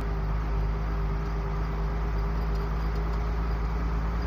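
Isuzu FTR truck's diesel engine running steadily at cruise with road noise, heard from inside the cab as a constant low rumble and hum.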